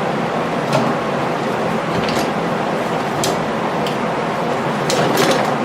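Steady fan-like whoosh of moving air, with a handful of light, sharp clicks and taps from handling the pocket knife, several of them close together near the end.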